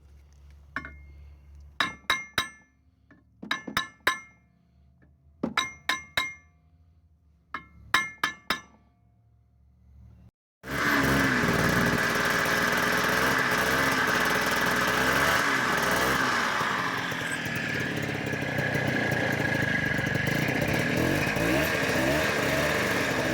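Four clusters of two to four quick, sharp knocks from a rubber hammer striking the clutch of a 1988 Ski-Doo Tundra LT snowmobile, to free a clutch that will not engage. About ten seconds in, the snowmobile engine is running steadily with a constant high whine.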